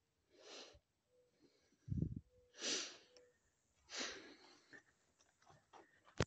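Three short breaths or sniffs close to the phone microphone, about a second and a half apart, with a low handling bump about two seconds in and a sharp click near the end.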